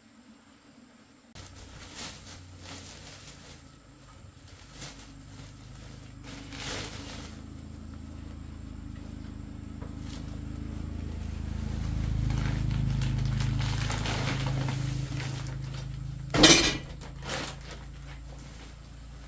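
A low motor hum swells over several seconds and then fades, with scattered clinks and knocks of objects being handled; a sharp knock about 16 seconds in is the loudest sound.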